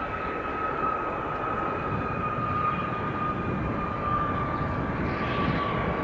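Gulfstream G150 business jet's twin turbofan engines: a steady whine that slowly falls in pitch over a broad rumble as the jet passes, growing a little louder toward the end.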